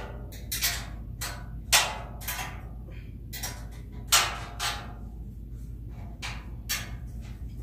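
Irregular knocks and clanks from the metal parts of a three-tier mesh rolling cart being handled and worked loose, about a dozen in all, the sharpest about two seconds and four seconds in.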